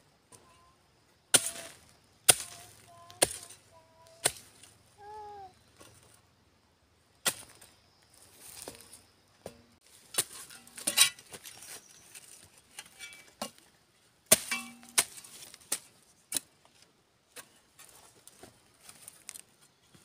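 A hand hoe chopping into dry, stony hillside soil: a dozen or so sharp strikes at irregular intervals, some in quick pairs.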